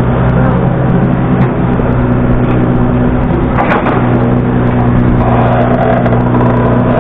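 Yanmar compact excavator's diesel engine running steadily as the arm swings down and the bucket digs into a pile of soil and gravel, with a short scraping noise near the middle as the bucket reaches the ground.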